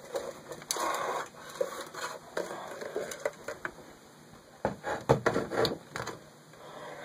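Scattered knocks and thumps of a mini basketball hitting an over-the-door hoop's backboard and the wooden door, with a quick cluster of knocks about five seconds in.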